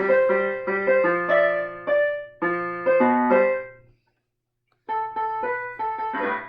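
Piano-style keyboard playing a run of struck notes and chords. It breaks off for under a second about four seconds in, then starts again.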